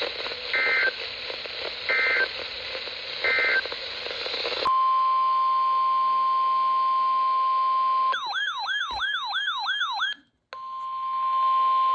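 Emergency Alert System tones: three short buzzing data bursts about a second and a half apart mark the end of one alert. A steady single-pitch alert tone near 1 kHz follows, then a warbling tone sweeping about four times a second, a brief cut-out, and the steady tone again.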